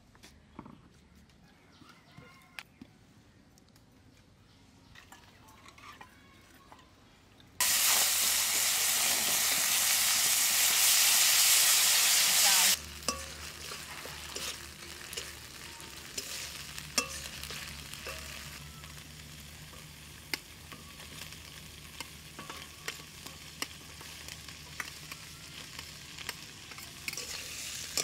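Frying in a metal wok. Near the start there are only faint clicks. About eight seconds in comes a very loud sizzle lasting about five seconds, which cuts off abruptly. After that a steady, quieter sizzle runs on as a metal spatula scrapes and stirs spiced cauliflower in the hot oil, with frequent clicks.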